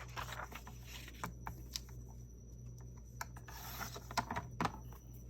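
Paper being handled at a craft table: soft rustles and a few scattered sharp clicks and taps.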